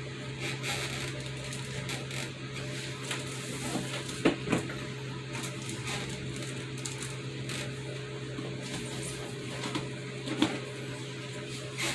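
Parts and packaging of a remote-control car kit being handled: light rustling with a few sharp knocks and clicks, two close together about four seconds in and one near ten seconds, over a steady low electrical hum.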